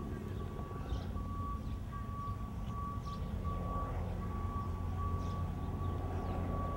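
A vehicle's reversing alarm beeping in a steady run of short high beeps over the low rumble of an engine.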